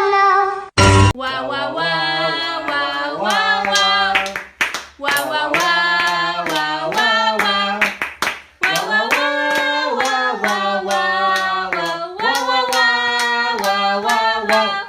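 Long, wordless sung notes that step and glide up and down in pitch, with short sharp claps or clicks between the phrases.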